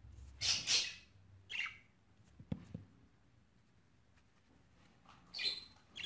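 Budgerigar giving three short squawks while held in the hand and powdered against mites. The first, about half a second in, is the loudest, with two faint clicks between the second and third.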